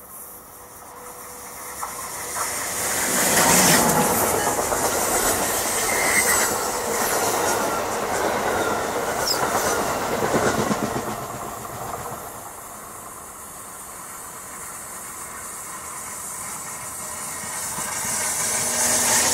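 An Amtrak AEM-7 electric locomotive and Amfleet coaches pass at speed, with wheels rumbling and clattering on the rails. The sound swells over the first few seconds, is loudest from about four to eleven seconds in, then fades as the train moves off. Near the end a second train grows louder as it approaches.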